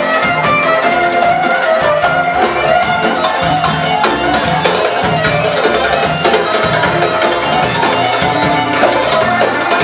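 Loud Arabic dance music at a steady level, with a melody line over a regular drum beat.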